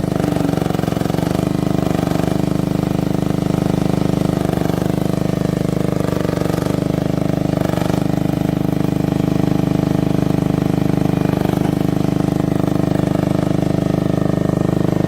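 Engine of a 1-tonne mini excavator running steadily at a constant speed.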